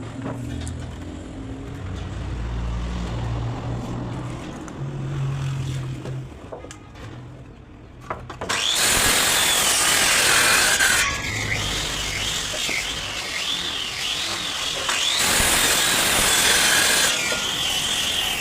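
Electric power tool working wood. It starts with a low steady motor hum, then about eight seconds in it bites into the wood with a loud rasping cut, and its whine wavers up and down in pitch as the load changes.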